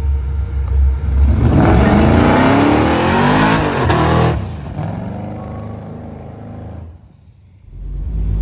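Car engine revving hard as it accelerates for about three seconds, its pitch climbing and then dropping, followed by a quieter engine note that fades; a low engine rumble comes back near the end.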